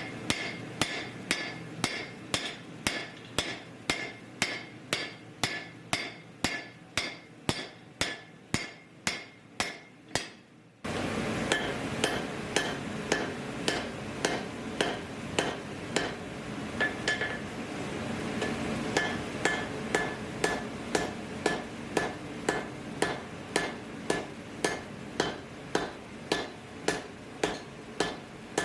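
Hand hammer striking steel on an anvil in a steady rhythm, about two to three blows a second, each with a short metallic ring, as the steel is hammered to set a forge weld. About eleven seconds in, the sound cuts to a louder steady rushing noise under the continuing blows.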